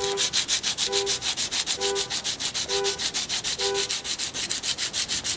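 Hand sanding with 120-grit sandpaper on the side of a small-block Chevy full roller rocker arm held in a vise, in quick back-and-forth strokes about eight a second. This is the finer pass that smooths out the deep scratches left by 80 grit. A short beep repeats about once a second through the first four seconds.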